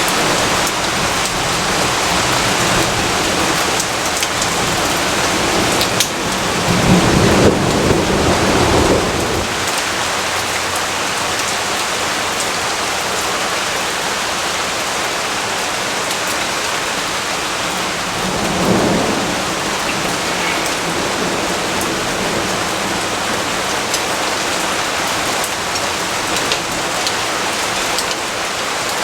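Steady rain falling, a dense even hiss. Low thunder rumbles swell under it twice: a longer roll about a quarter of the way in and a shorter one about two-thirds of the way through.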